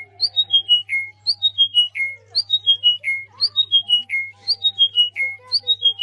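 Small pale buff bird singing the same short phrase over and over, about once a second: five clear whistled notes stepping down in pitch, the last one lower and longer.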